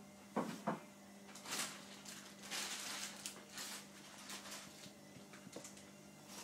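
Close handling noise of a phone filming a coin: two light clicks, then soft rustling and brushing with a few small ticks, over a faint steady hum.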